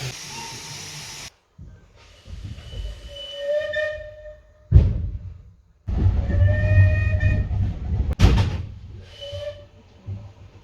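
Three short clips of a steam locomotive whistle, each sounding one steady note and cut off abruptly. The first two last about a second, the last is brief. There is a loud burst of noise just before the second whistle and a sharp click after it.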